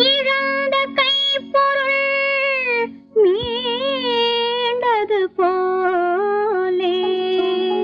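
Tamil film song from the 1960s: a woman's high singing voice holds long phrases with vibrato over a steady low accompaniment, with short breaks between phrases.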